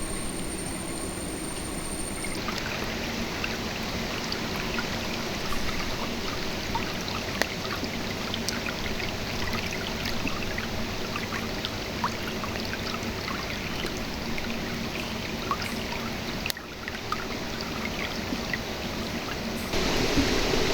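Shallow river water running over stones: a steady rush with many small splashes and drips.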